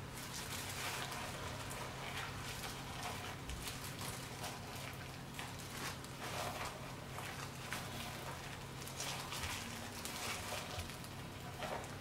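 Knife filleting a redfish: a continual run of small crackling, scraping ticks as the blade works through skin and flesh on the cutting board, over a steady low hum.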